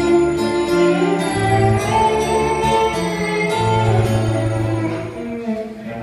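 Live instrumental song intro played by a small string-led band: violin, acoustic guitar and keyboard over a large low bowed string instrument. Long held notes move above a slow bass line of sustained low notes about a second each, easing off slightly near the end.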